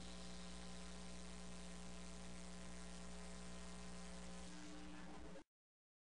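Faint, steady electrical mains hum at the tail of a faded-out song, cutting off to dead silence about five seconds in.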